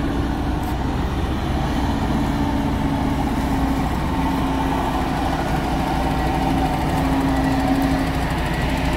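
Heavy diesel engine running steadily, a constant low drone with a held hum that wavers only slightly in pitch.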